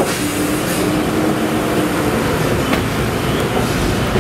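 Truck's diesel engine running next to the car, a steady rumble with a humming tone in the first half, over street noise; a brief knock a little past the middle.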